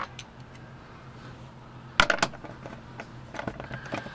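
Socket wrench clicking and clinking on a car undercover bolt: a sharp cluster of three metallic clicks about two seconds in, then lighter ticking near the end as the bolt is worked.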